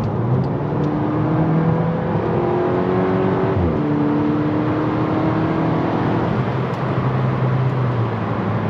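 MK6 Volkswagen GTI's turbocharged 2.0-litre four-cylinder accelerating, revs climbing, falling at a gear change about three and a half seconds in, then climbing again before another shift near six seconds. It pulls with no rattle from the internal wastegate, which the freshly replaced turbo has cured.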